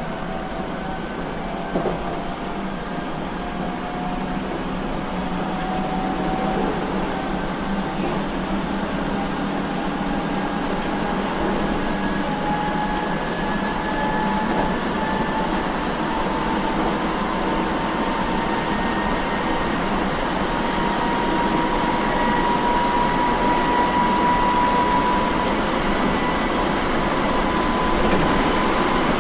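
Interior running sound of an Osaka Municipal Transportation Bureau 66 series early-production car with GTO-VVVF drive, gathering speed: a steady rumble of wheels on rail under a motor whine that rises slowly in pitch and grows louder. One sharp knock about two seconds in.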